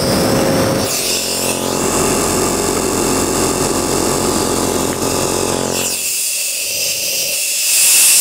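Compressor nebulizer's motor running with a steady mechanical hum, heard up close. About six seconds in the low hum fades, leaving a hiss.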